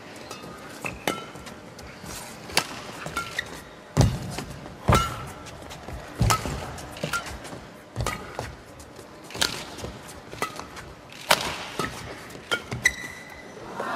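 Badminton rally: rackets strike the shuttlecock with sharp cracks every second or so, shoes squeak on the court floor between shots, and the crowd breaks into cheering right at the end.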